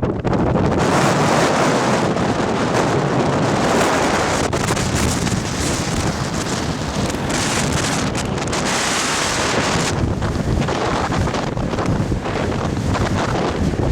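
Strong mountain wind buffeting the microphone: a loud, continuous rush that swells and eases with the gusts.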